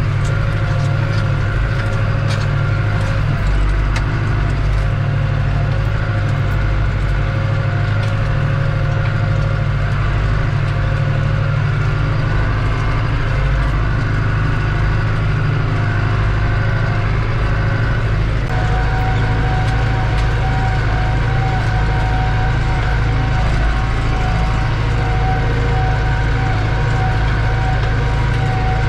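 New Holland TD85 tractor's turbocharged diesel engine running steadily under load while pulling a disc harrow through plowed soil, heard from inside the cab. The turbo's whine sits over the engine, and a further steady higher tone joins about two-thirds of the way in.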